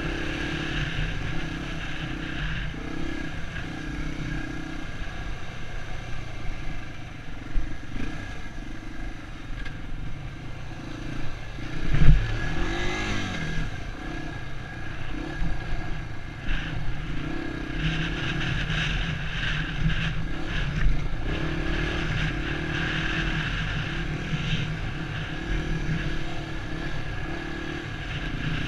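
Dirt bike engine running on a trail ride, the throttle opening and closing so its pitch rises and falls every second or two. A sharp, loud thump comes about twelve seconds in, followed by a quick rev up and back down.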